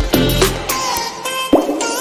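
Background music with a steady electronic beat and pitched melody lines; the drums and bass drop out for about the last second.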